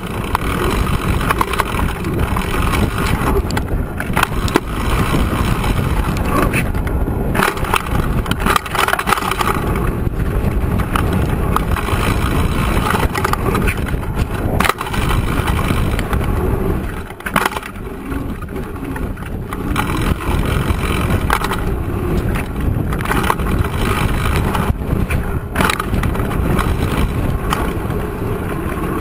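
Mountain bike riding fast down a dirt 4X track: a loud, steady rumble of tyres on hard-packed dirt and rushing air, broken several times by sharp knocks from bumps, jumps and landings.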